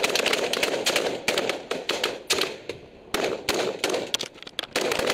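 Rifle fire from a ship's deck: many rapid shots in several quick bursts, with short pauses between them.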